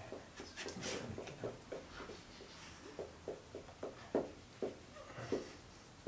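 Faint, irregular soft rubbing and scratching, about two or three strokes a second, as a hand rubs a Labrador's fur and the dog shifts on the carpet.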